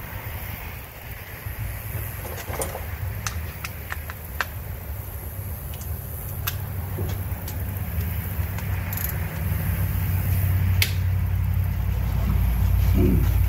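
Scattered sharp metallic clicks and taps of a ratchet and hand tools working the bolts on the front cylinder head of a Can-Am Commander's 1000cc V-twin, over a low rumble that grows louder toward the end.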